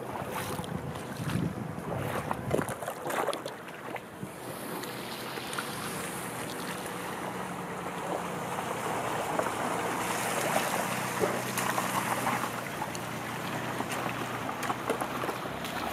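Wind buffeting the microphone over outdoor noise, with crackling clicks in the first few seconds and a low, steady engine-like hum through the middle.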